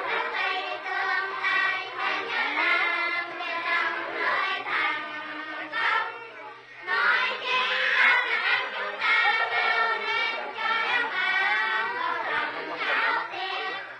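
A crowd of children's voices, many at once, high-pitched and overlapping, with a short break about six and a half seconds in.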